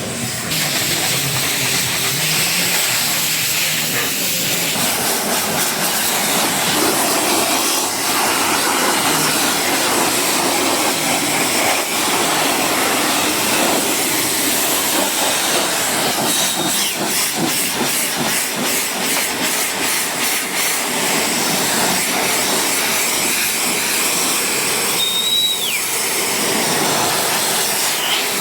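Pressure washer spraying a jet of water against a car, a loud steady hiss, with a brief high squeal near the end.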